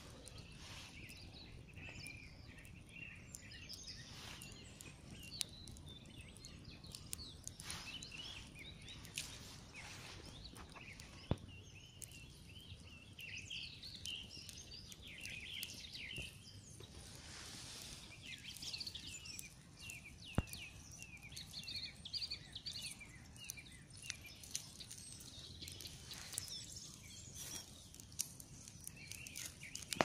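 Wood campfire crackling, with a couple of sharp pops standing out, over birds chirping.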